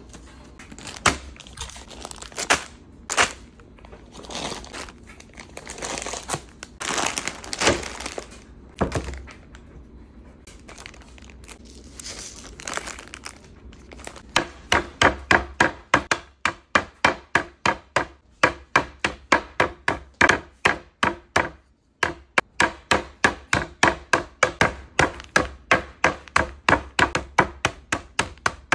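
Plastic packages crinkling and being set down with light thunks, then a zip-top bag of nuts being struck again and again on a wooden board to crush them: an even run of sharp strikes, about two a second, with one short pause.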